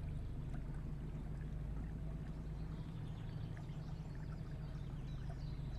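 Water trickling and dripping around a paddled canoe gliding along a still channel, over a low steady rumble.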